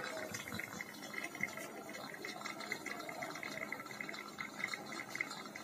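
Pressure cooker on a gas burner, water boiling inside it under pressure: a steady bubbling hiss as steam and water leak out around the balloon and tube fixed over its whistle vent.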